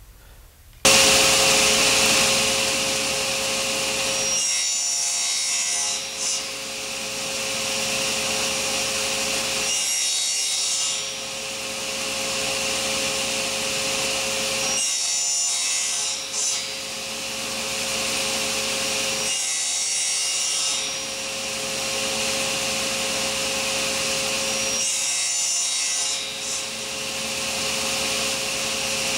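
Table saw running and cutting notches into a wooden gear blank held in an indexing jig. It comes in suddenly about a second in and then holds a steady whine, with a brief change in tone about every five seconds as each cut is repeated.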